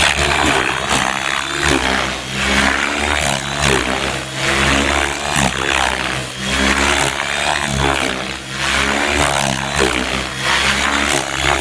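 Gaui X7 radio-controlled helicopter in 3D freestyle flight at high head speed: the rotor blades chop and the electric drive whines, rising and falling in pitch and loudness with each manoeuvre.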